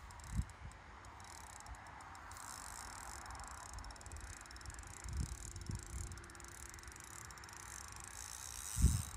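Fishing reel ticking rapidly while a hooked fish is played on a bent feeder rod, starting about two seconds in. A few low handling bumps, the loudest near the end.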